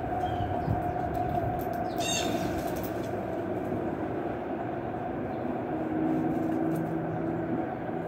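A steady low outdoor rumble, like distant traffic or rail noise, with a short high house sparrow chirp about two seconds in and a low droning hum joining near the end.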